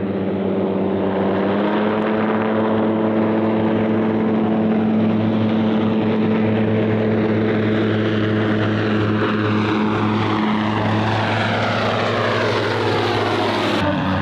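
Two microlight aircraft's propeller engines running steadily at flying speed as they come in low, growing louder. Their pitch slides downward in the last few seconds and drops sharply near the end as they pass close overhead.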